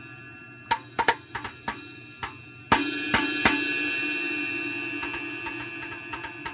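Drum sounds played by a home-built electronic drum module as its velocity-sensitive drum pad is struck. A quick run of hits of varying loudness comes first, then one loud hit about two and a half seconds in that rings on for a couple of seconds, then a few lighter hits near the end.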